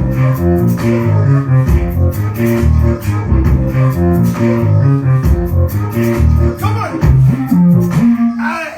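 Grime instrumental beat playing: a heavy, stepping bass line under steady hi-hat ticks, with the bass sliding up and down in pitch near the end.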